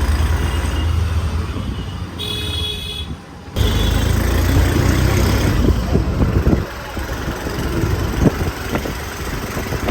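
Busy street traffic: motor vehicle engines rumbling, with a horn honking briefly about two seconds in.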